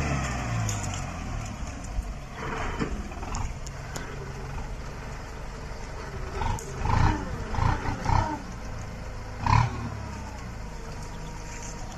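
Farm tractor engine running steadily, swelling in several short louder surges about halfway through and once more near the end.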